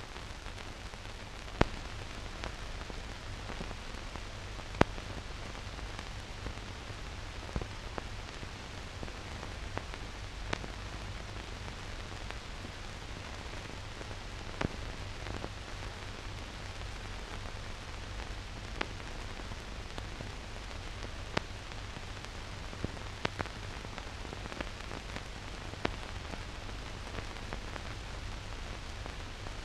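Steady hiss with a low hum and scattered sharp clicks and crackles, and nothing else: the empty soundtrack of a silent newsreel film.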